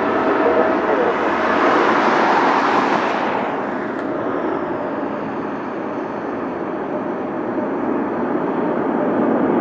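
Jet airliner passing close by, its engines a loud steady rushing roar. The high hiss fades away about three and a half seconds in, leaving a lower rumble as it moves off.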